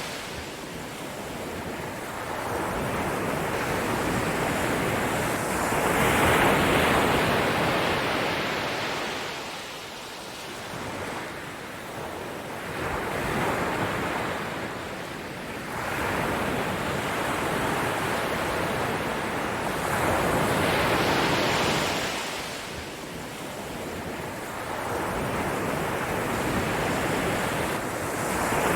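Sea surf washing in and out, a rushing noise that swells and fades every five to seven seconds.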